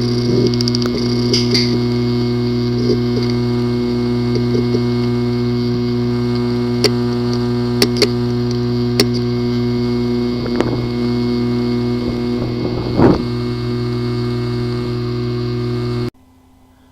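Hard drive with physically damaged disk assembly, powered up and making a steady buzzing hum with a few sharp clicks and a rough scraping burst about 13 seconds in, the typical sound of a failed head-disk assembly. It cuts off suddenly near the end.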